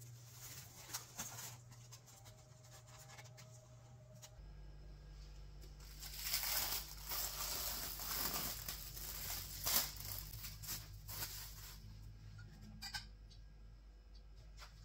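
Plastic cling film crinkling and rustling as it is handled over a glass baking dish, loudest for several seconds in the middle as it is peeled off.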